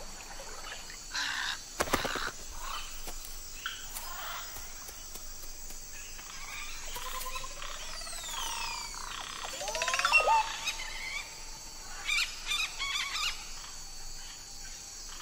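Wetland birds calling over a steady high insect drone: scattered calls, a run of rising whistled notes about ten seconds in that is the loudest, then a quick chattering series.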